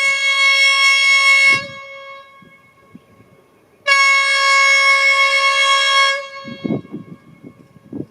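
Air horn of a Dongfeng 21 metre-gauge diesel locomotive sounding two long, steady blasts of about two seconds each, separated by a pause of about two seconds. A few low knocks follow the second blast.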